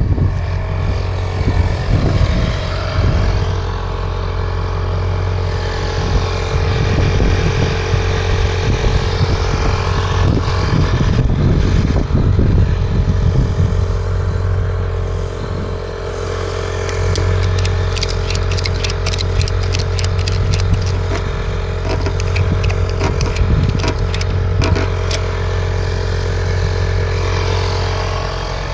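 Truck engine running steadily with a deep hum. A little past halfway comes a stretch of rapid rattling that lasts several seconds.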